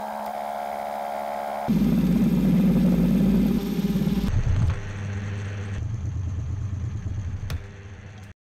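Milling machine spindle running while a broken end mill cuts along the edge of a tall steel plate in a vise, taking progressively deeper side cuts. A steady whine at first; from about two seconds in the cut is much louder and rougher, then eases back to steadier running before the sound cuts off suddenly near the end.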